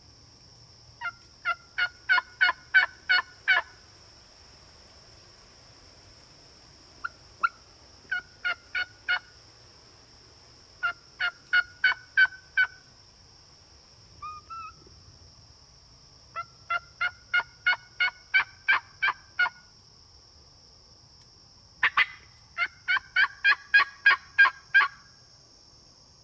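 Series of loud turkey yelps, about six runs of several notes each at roughly three a second, over a steady high insect buzz.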